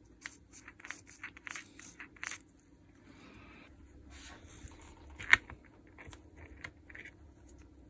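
Small clicks, light knocks and scraping from handling the parts of a disassembled DeWalt DCH333 cordless rotary hammer's gearbox, with one sharp click about five seconds in.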